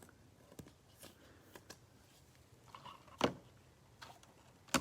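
Trading cards being handled and sorted: faint card-against-card clicks, with a sharp snap about three seconds in and another near the end.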